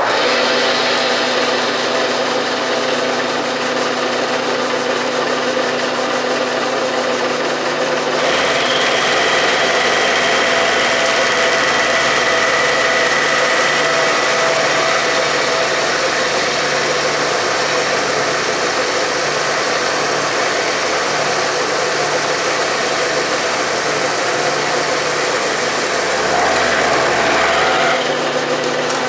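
Milling machine running with a roughing (hogging) end mill cutting steel, a steady machine hum; about eight seconds in the sound grows fuller and louder as the cut bites, and it eases a little near the end.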